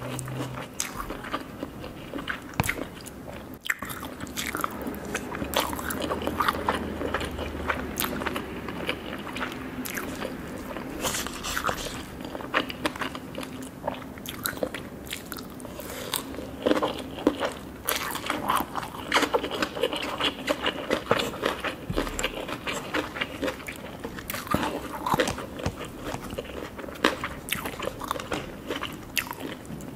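Someone biting and chewing crunchy food, with many irregular crisp crunches.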